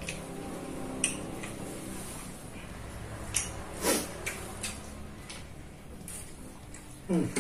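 Close-miked eating sounds: chewing of a last mouthful of rice, with a few short sharp wet clicks and smacks scattered through, the loudest just before the end, and fingers picking grains off a tray.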